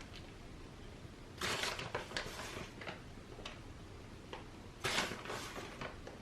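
Two short bursts of rustling, about a second long each, with a few small clicks and taps: shredded cheese being handled and sprinkled onto the bread slices.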